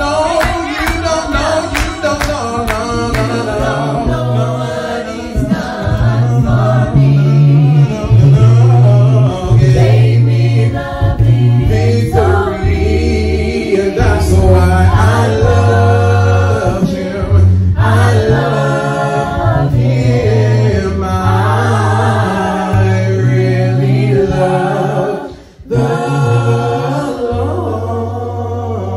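A cappella gospel praise team of men's and women's voices singing in harmony, with a low bass voice holding notes that step from pitch to pitch under the upper parts. The singing dips briefly about three-quarters of the way through, then comes back and ends on a long held low note.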